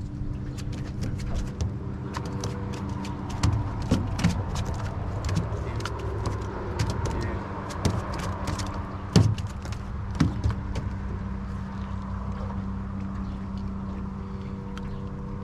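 A boat motor running steadily at low speed, with scattered knocks and clicks from a landed smallmouth bass and gear being handled in the boat; the loudest knock comes about nine seconds in.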